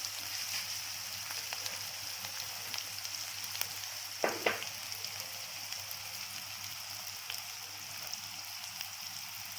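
Chopped onion, green chilli and curry leaves sizzling in hot oil in a pan: a steady frying hiss with small crackles. A little past four seconds in come two short knocks close together.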